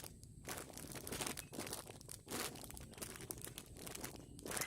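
Plastic packaging crinkling irregularly as a squishy toy is handled, a run of faint crackles.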